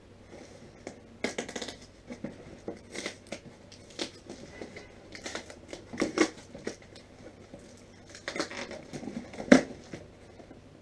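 A long cardboard shipping box being unpacked by hand: scattered rustling, scraping and crinkling of cardboard and packing, with a few sharp knocks, the sharpest near the end.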